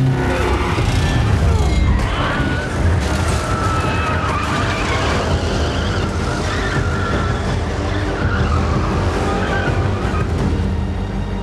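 Muscle car engine running hard under acceleration, its tyres squealing and skidding in wheelspin, mixed with a film score.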